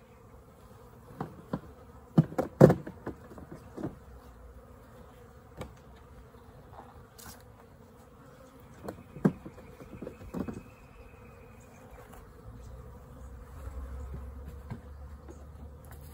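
Honeybees buzzing steadily around an open hive, with sharp wooden knocks and scrapes as frames are set down into the hive box: a cluster of clacks a couple of seconds in, the loudest of them, and a second cluster around nine to ten seconds in.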